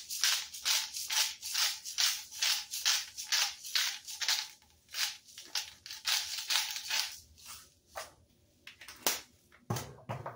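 Salt shaken from a shaker over a pot, a rattling about three shakes a second that stops about seven seconds in, followed by a few separate knocks.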